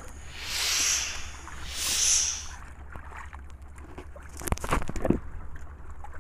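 Sea water splashing and sloshing against the hull of a small wooden outrigger boat in three swelling washes, over a steady low wind rumble on the microphone. A quick cluster of knocks from handling gear in the boat comes about two-thirds of the way in.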